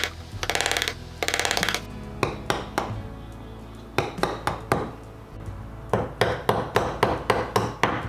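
A carving gouge being tapped into a hardwood spoon blank, sharp taps in small groups with a quicker run of about eight near the end, after a rapid rattling in the first two seconds. Background music runs underneath.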